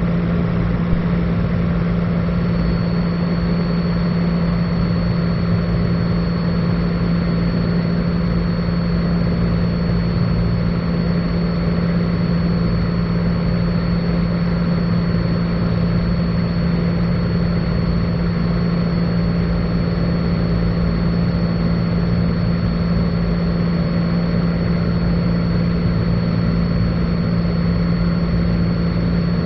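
Cessna 182 Skylane's piston engine and propeller droning steadily in flight, heard from inside the cabin. A thin, steady high whine joins it about two seconds in.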